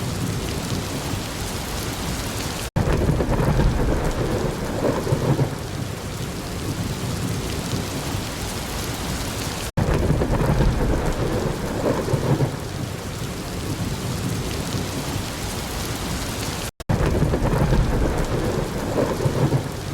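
Heavy rain with rumbling thunder. The recording is a short loop that repeats about every seven seconds: each repeat begins with a split-second dropout to silence, followed by a louder swell of low thunder rumble over the rain.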